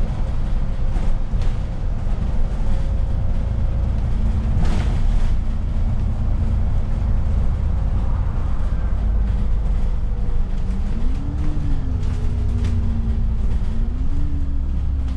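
Alexander Dennis Enviro400 City double-decker bus heard from inside while driving. A deep rumble runs under a steady drivetrain whine, whose pitch swells and falls twice near the end as the bus changes speed. A few brief knocks and rattles come through.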